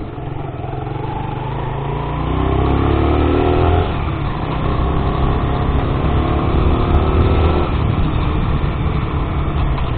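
Sinnis Max 2 motorcycle engine pulling under acceleration, its pitch rising for a couple of seconds, dropping back, then climbing again. A steady rush of wind noise on the helmet microphone runs underneath.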